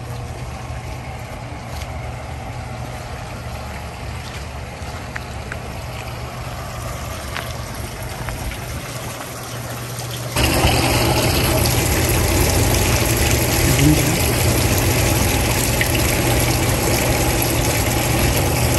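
Small garden pond water feature: water trickling steadily over a low pump hum, suddenly louder from about ten seconds in.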